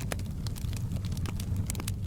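Wood fire in a fireplace crackling: irregular sharp pops and snaps, several a second, over a steady low rumble.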